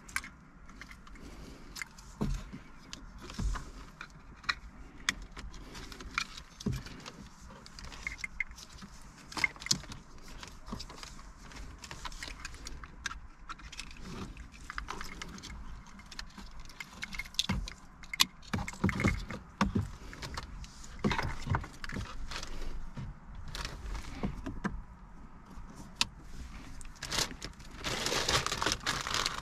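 Plastic wiring-harness plugs and loose cables clicking, rattling and rustling as they are handled and fitted together. Near the end a plastic bag crinkles loudly.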